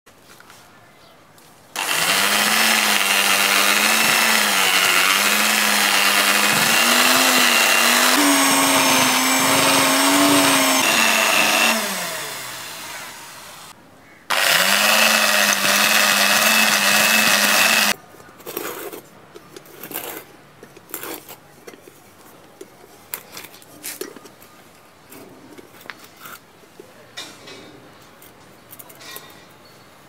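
Corded electric drill running as it bores into sand: a first run of about ten seconds with its pitch wavering, then spinning down, and a second shorter run of about four seconds that cuts off abruptly. Scattered light knocks and scrapes follow.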